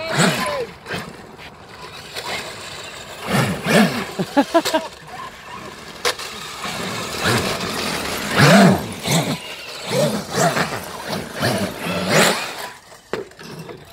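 Electric radio-controlled cars, a Traxxas X-Maxx and a toy-grade RC truck, driving on concrete: motor whine rising and falling with the throttle over tyre noise, in several louder swells.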